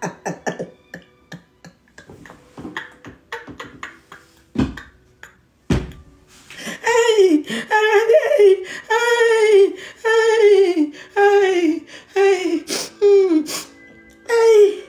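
A woman laughing hard. Scattered quiet clicks and breaths give way, about six seconds in, to a string of about nine loud, drawn-out cries of laughter, each falling in pitch.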